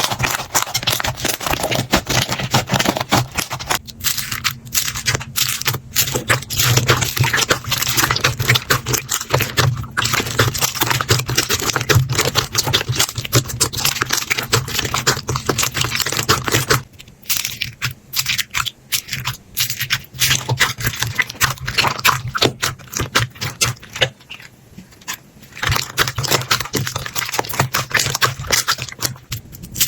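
Slime being squished and poked by hand: a dense crackle of small clicks, pops and squelches, easing off for a few seconds twice in the second half, over a low steady hum.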